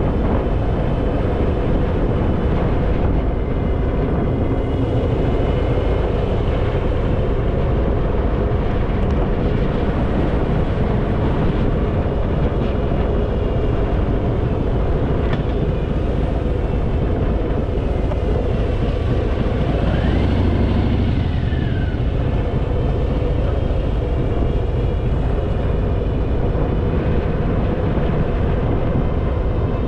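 Harley-Davidson Fat Boy's V-twin engine running at steady road speed, mixed with wind rush on the microphone. About twenty seconds in there is a brief rise and fall in pitch.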